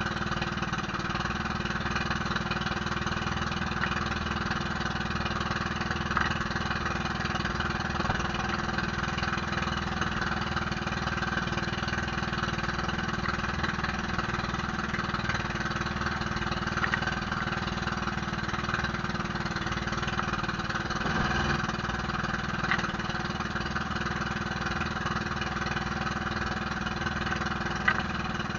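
Outrigger fishing boat's engine running steadily at an even speed, with a few faint knocks over it.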